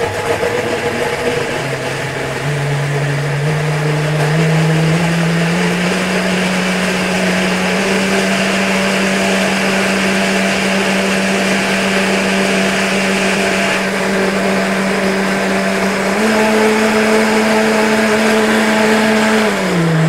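Electric blender pureeing cut-up mango. The motor's pitch climbs over the first few seconds and holds steady, steps up a little near the end, then the blender is switched off and winds down.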